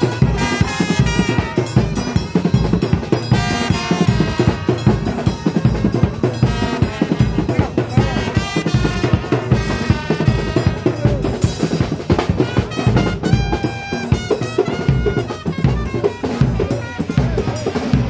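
A marching band playing: snare and bass drums keep a busy, driving beat under a trumpet melody.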